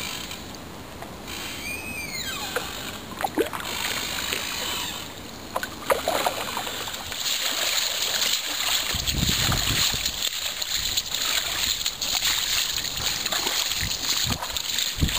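Water splashing and sloshing around boots and a kayak's hull as the boat is waded and dragged through a shallow, fast-flowing flooded stream. The sound grows louder and fuller about halfway in.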